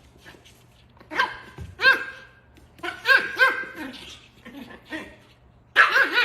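A dog barking, a handful of short, high barks spaced out over a few seconds.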